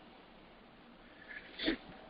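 Quiet room tone during a pause in a talk, with one short, soft breath-like sound near the end.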